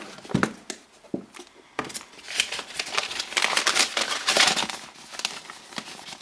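A few light knocks of cardboard box flaps being handled, then, from about two seconds in, a folded paper manual rustling and crinkling as it is lifted out and unfolded.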